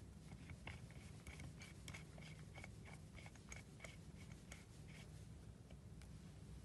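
Faint clicks and light metal ticks of a brass grease-nipple fitting being handled and screwed onto a cast pillow block bearing, including a run of evenly spaced ticks about three a second, over a low steady hum.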